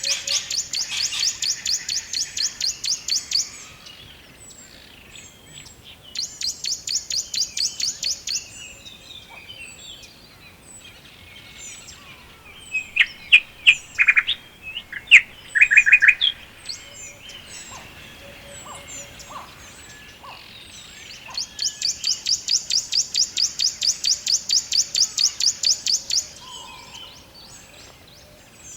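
Woodland birds singing. One bird gives a high, rapid trill of evenly spaced notes in runs of a few seconds, three times; in the middle another bird gives a burst of loud, short chirps.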